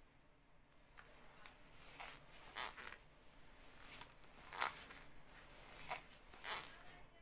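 Short swishing sounds in pairs about every two seconds, from someone squeezing and releasing a foam-covered spring thigh exerciser with her leg.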